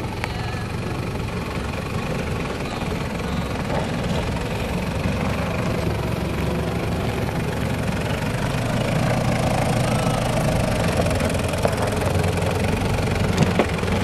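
Toyota Land Cruiser Prado 90 series engine running at low revs as the 4x4 crawls over rough ground, growing louder as it comes closer, with a few sharp knocks near the end.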